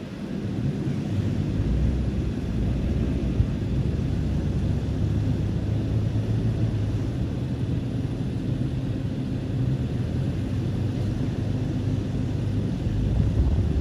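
Off-road vehicle's engine running with a steady low rumble, rising slightly in level near the end, with one brief click about three seconds in.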